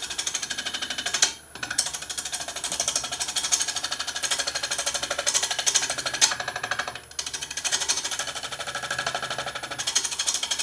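A turning tool cutting a rough, not-yet-trued wooden disc spinning on a wood lathe at about 750 rpm, making a fast, even rattle as the tool meets the uneven surface. The rattle breaks off briefly twice.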